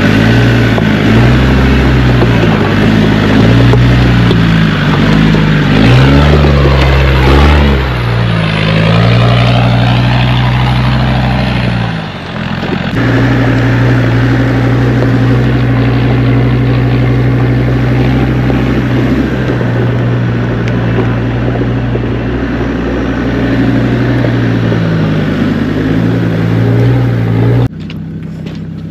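Land Rover Discovery 2's Td5 five-cylinder turbodiesel engine working at low speed over rock, its revs rising and falling for the first dozen seconds. After a brief dip it runs at a steady pitch, then turns abruptly quieter near the end.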